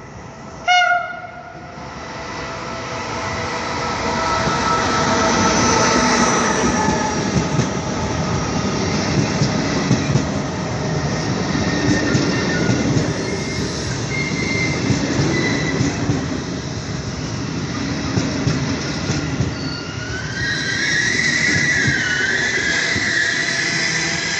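A short horn blast from an electric locomotive about a second in, then the locomotive-hauled Trenord regional train running past along the platform. Its rumble builds and holds, with wheel clatter and high-pitched, wavering wheel squeal near the end.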